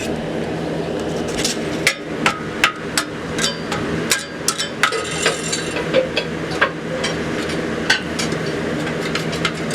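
Hammer striking metal in a run of irregular sharp blows, some ringing briefly, over a steady machine hum.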